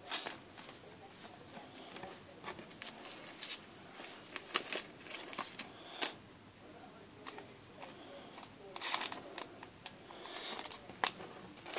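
Soft rustling and light clicks of Pokémon trading cards being slid into clear plastic card sleeves, with a sharper tick about six seconds in and a cluster of handling noises around nine seconds.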